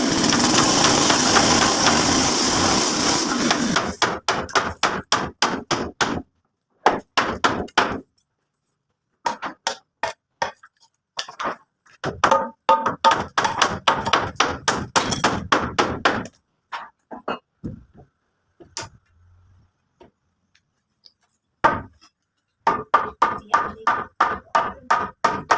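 A loud, steady rushing noise for the first four seconds or so, then runs of quick hammer blows, several strikes a second, separated by short pauses.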